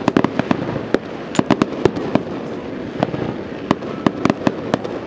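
Fireworks display: a rapid, irregular string of sharp bangs and pops, several a second, from shells bursting, over a steady wash of noise from the show.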